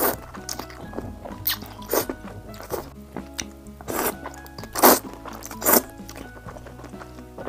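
A person slurping long snail noodles (luosifen) from a bowl with chopsticks: a string of short slurps, the loudest about five seconds in, over soft background music.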